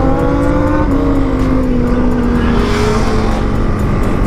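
Honda CB300R's single-cylinder engine under way, its pitch climbing slightly, dropping about a second in, then sinking slowly as the bike eases off, under heavy wind rumble on the microphone.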